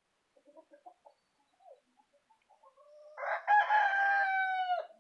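A rooster crowing: one long crow starting about three seconds in, its pitch dropping off at the end, after a few faint short clucks.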